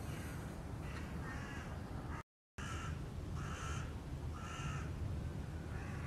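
Crows cawing, a series of calls roughly a second apart, over a steady low rumble. The sound cuts out completely for a moment a little past two seconds in.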